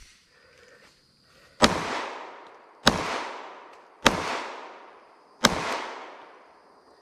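Glock 19X 9mm pistol fired four times in slow, deliberate succession, about one shot every 1.2 to 1.4 seconds, each sharp report followed by a fading echo.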